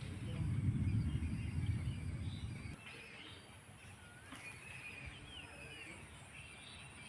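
Birds chirping and whistling over a steady high insect hiss. A loud low rumble fills the first few seconds and cuts off suddenly.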